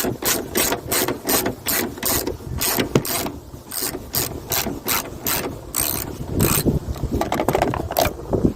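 Hand ratchet with a 13 mm socket clicking in quick, regular strokes, about three to four a second, as it backs out hood hinge bolts, with a short pause about three and a half seconds in.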